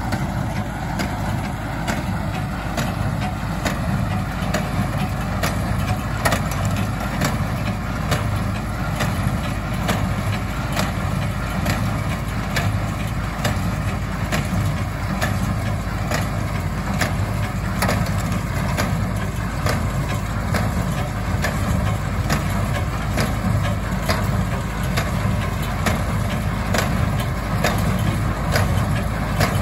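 Tractor engine running steadily under load as it powers a New Holland small square baler, with the baler's plunger knocking in an even beat a little faster than once a second as it packs hay into bales.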